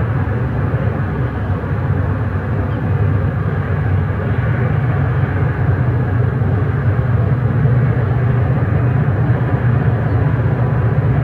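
Low, steady rumble of the approaching CSX freight train's diesel locomotives heard from across the river, growing slightly louder.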